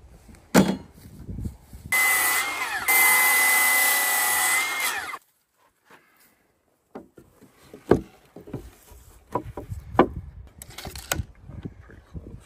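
Electric saw cutting through a wooden board for about three seconds, its motor whine steady under the cutting noise, after a single knock. Then scattered knocks of lumber being handled.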